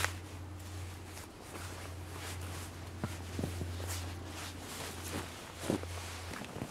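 Cord and jacket rustling as a ridgeline cord is wrapped and pulled tight around a tree trunk, with a few short clicks and crunches. A steady low hum runs underneath and cuts off near the end.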